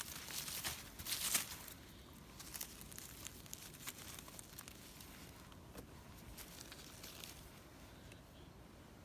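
Dry leaf litter rustling and crackling as a gloved hand rummages through it to pick mushrooms. Loudest in the first two seconds, then fainter scattered rustles and small clicks.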